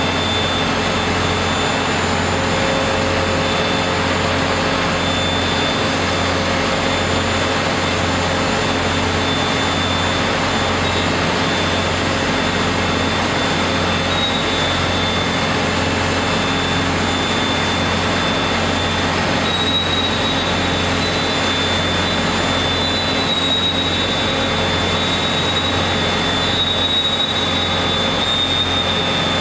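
Hot-coiling machine running steadily as it winds a red-hot steel bar into a large coil spring, with a steady industrial drone and hum and a high whine that rises slightly about two-thirds of the way through.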